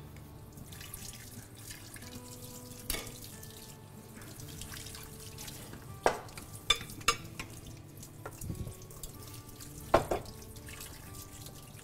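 Kitchen sink sounds: water running and kitchenware clinking, with about five sharp knocks of dishes or utensils.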